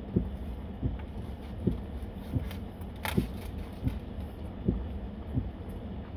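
A person chewing a mouthful of fried chicken sandwich close to the microphone: soft, even jaw thumps about one every 0.7 seconds, with one crisper crackle about three seconds in.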